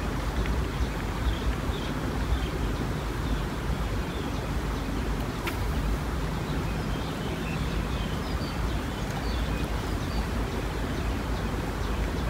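Steady riverside ambience: a continuous low rumble with faint high bird chirps scattered through it, and one sharp click about five and a half seconds in.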